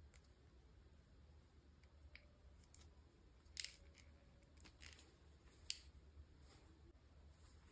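Soft clicks and snips from handling small packaging during an unboxing, with two sharper clicks about three and a half and six seconds in, over a faint low hum.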